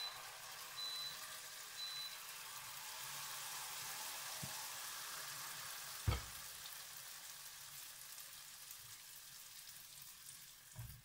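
Zalabia batter frying in hot oil in a frying pan: a steady sizzle and crackle. A single knock comes about six seconds in.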